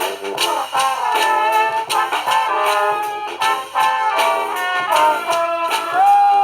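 Street brass band playing: trumpets and trombones carry a melody over steady percussion hits, ending on a long held note that slides up near the end.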